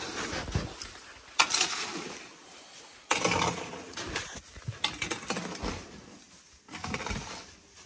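Irregular scraping and knocking of hand tools working cement on a floor being laid, in five or six separate strokes.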